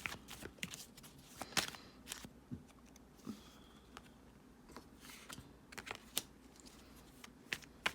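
Tarot cards being handled on a table: scattered light taps and clicks a second or so apart.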